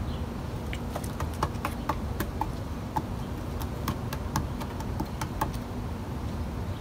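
Irregular quick clicks and taps of a fox squirrel's claws on the wooden fence top and the solar light as it scampers along, bunched through the first five and a half seconds.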